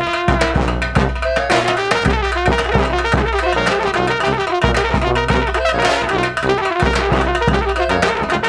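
Balkan brass band music: trumpets and trombones playing a lively tune over a low brass bass line and driving drums.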